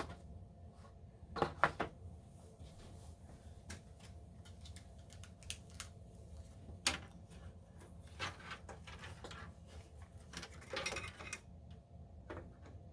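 Scattered clicks and knocks of a graphics card and its metal bracket being handled and pressed into a PC tower's expansion slot, with a faint steady hum underneath.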